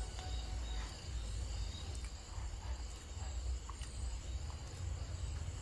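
Crickets chirping steadily in a quiet night ambience over a low hum, with a few faint small clicks.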